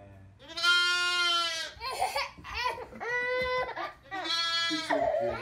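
Baby goat bleating repeatedly: one long call starting about half a second in, then several shorter ones.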